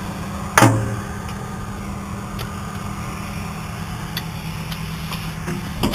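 Case IH Magnum 305 tractor engine running steadily, heard from inside the cab, with one sharp clunk a little over half a second in.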